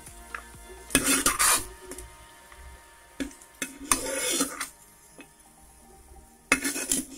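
Steel spoon scraping across the bottom of a pressure cooker, scooping out cashews and raisins fried in ghee, in three short scrapes over a faint sizzle of the hot ghee.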